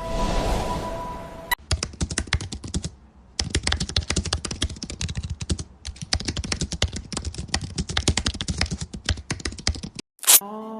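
A rapid, continuous run of small clicks, many per second, with two brief pauses, like typing on a keyboard. It follows a short swell of music at the start, and a bright swoosh comes near the end.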